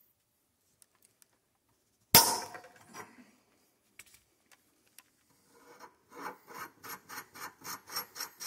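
A sharp crack as the wrench breaks the tight, rust-corroded muzzle device loose on the AR-15 barrel, then a few light clicks. From about six seconds in comes a rhythmic rasping, about four strokes a second, as the muzzle device is turned off the barrel threads.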